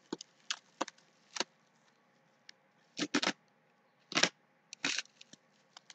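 Plastic bubble wrap crinkling in short, irregular rustles as it is cut open with a blade.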